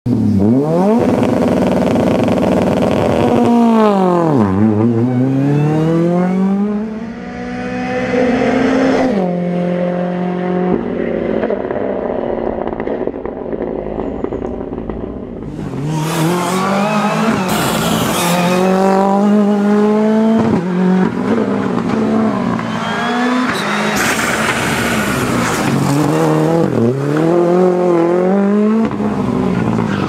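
Ford Fiesta R5 rally car's turbocharged 1.6-litre four-cylinder engine revving hard, the pitch climbing and dropping again and again through gear changes, with abrupt cuts between passes. A harsh hiss joins the engine about halfway through.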